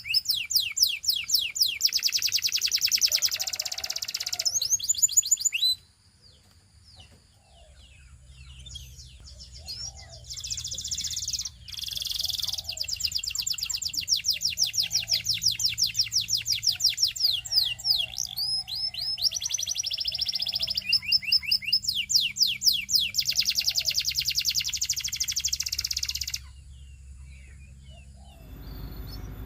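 Russian canary singing: fast trills of rapidly repeated high notes, with a pause of a few seconds about six seconds in before the song resumes and stops again near the end.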